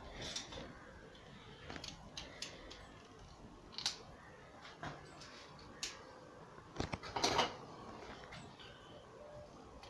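A craft knife being handled against wallpaper: scattered light clicks and taps, with a short scraping rustle about seven seconds in.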